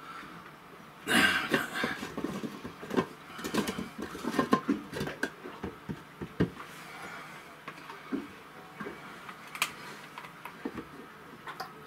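Hand-handling noise from unscrewing and lifting off the lid of a boat engine's raw water strainer: irregular clicks, knocks and small rattles, thickest in the first half, with one sharper knock about halfway.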